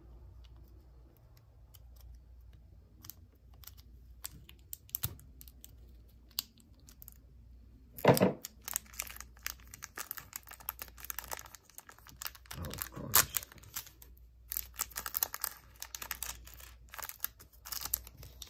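Hands handling small plastic minifigure parts and packaging: scattered light clicks at first, then from about eight seconds in a denser stretch of crinkling, rustling and clicking.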